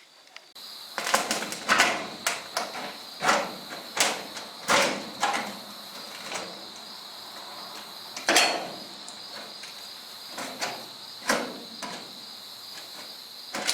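Insects, crickets by their steady high trill, with about fifteen irregular sharp knocks and clunks over them; the knocks are the loudest sounds.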